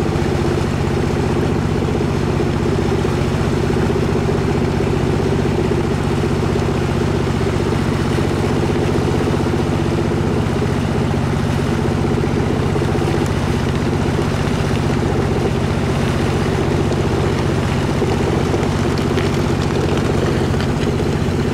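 A river boat's engine running at a steady speed, a constant low drone with a hiss above it.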